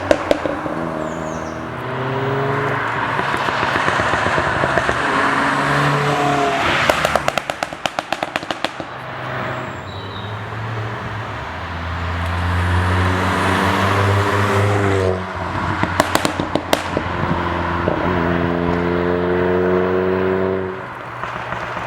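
Alfa Romeo Giulietta Quadrifoglio Verde's turbocharged 1750 four-cylinder through a Ragazzon exhaust, its note rising steadily under throttle several times. When the throttle lifts it gives rapid crackling pops on overrun, from a pop-and-bang engine tune: a cluster about seven seconds in and another around fifteen to seventeen seconds.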